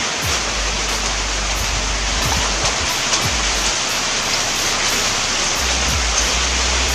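Rain falling steadily, an even hiss, with a low rumble underneath that drops out for a couple of seconds in the middle.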